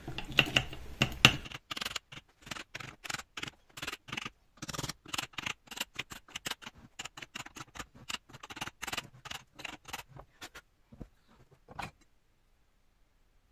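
Rapid, irregular light tapping and rattling, several clicks a second, as a 3D-printed plastic gear pattern is rapped and worked side to side through a rod in its centre hole to loosen it from the packed casting sand. The clicking thins out and stops near the end.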